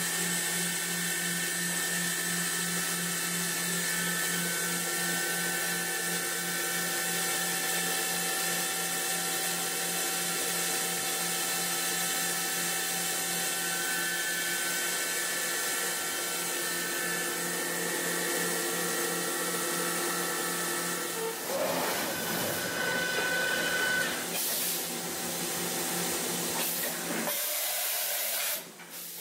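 The spindle of a Mazak Nexus HCN-6000-II horizontal machining center running at a steady speed, a steady whine of several tones. About 21 seconds in it gives way to a louder rushing hiss with shifting tones, which drops off sharply near the end.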